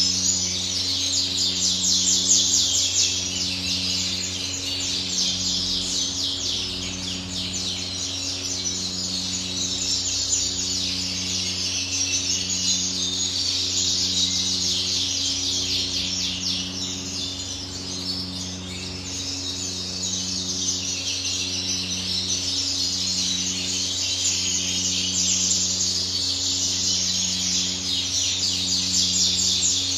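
Many caged songbirds chirping and singing at once in a continuous, dense high twitter. Underneath runs a steady low electrical hum that pulses about once a second.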